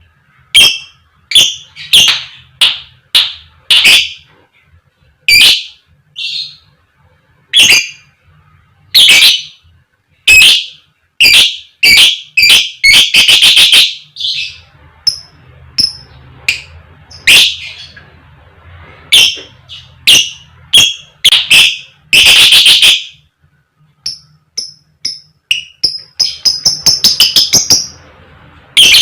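Lovebird calling loudly with sharp, high 'koek koek' and 'cik cik' calls, in irregular series with short quick runs of chatter.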